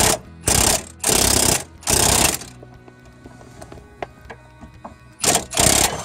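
Short bursts of rapid metallic clicking and rattling from a C-frame ball joint press and hand tools being set up on the steering linkage: four bursts in quick succession, then two more near the end. Background music with steady low tones runs underneath.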